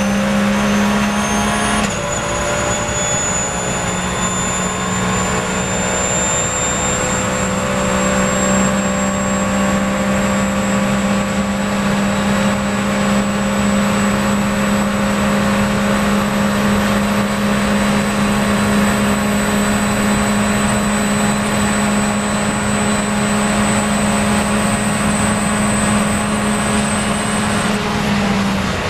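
Porsche 911 GT3 Cup race car's flat-six heard from inside the cockpit at full throttle: an upshift about two seconds in, then the engine note climbing slowly and steadily as the car gains speed. The note drops right at the end as the driver lifts off.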